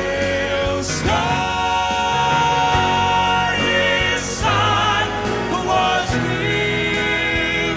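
Male four-part gospel quartet singing in close harmony with grand piano accompaniment, holding a long chord about a second in, then moving on with voices wavering in vibrato.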